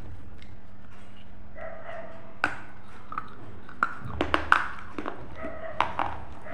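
Crisp crunches of a flat round snack being bitten and chewed close to a clip-on microphone: one sharp crack a couple of seconds in, then a quick cluster of crunches about halfway through and another near the end.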